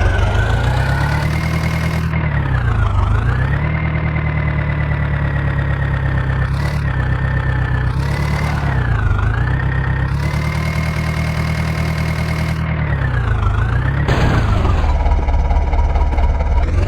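Diesel engine of a tractor or backhoe loader running under load, its speed sagging and picking back up three times, roughly every four to five seconds.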